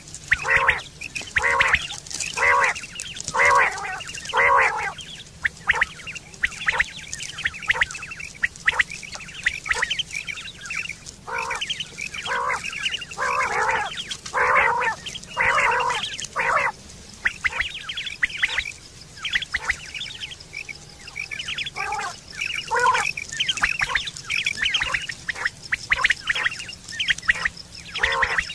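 Common quail calling: short, harsh notes repeated quickly in runs, louder in some stretches and fainter in others.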